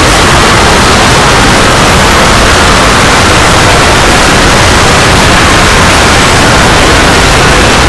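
Loud, steady hiss of noise like static, with no pitch, rhythm or breaks.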